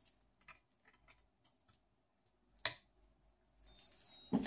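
An Arduino prototype's buzzer playing its short start-up tune, a run of high beeps stepping in pitch, as the device powers on near the end. A sharp click comes a little before it, about two and a half seconds in.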